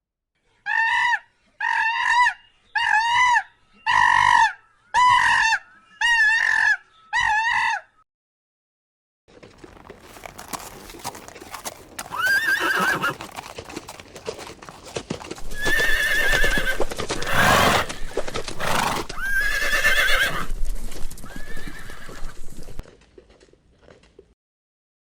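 Seven short pitched animal calls about a second apart, then a gap. After that come horse whinnies, three arching cries over snorting and shuffling noise, which stop a couple of seconds before the end.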